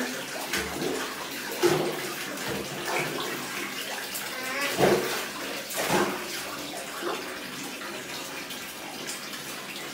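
Bathtub tap running into a tub of water, with splashing as a toddler's hair is washed; several short louder splashes stand out, the strongest around the middle.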